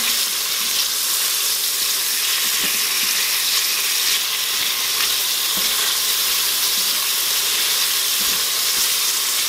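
Cubes of venison searing in hot bacon grease in an Instant Pot's stainless steel inner pot on the sauté setting: a steady sizzle, with occasional faint scrapes from the silicone spatula turning the pieces to brown each side.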